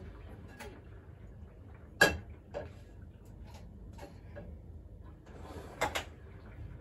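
Scattered clicks and knocks of kitchenware being handled at a counter, the loudest about two seconds in and a quick double knock near the end.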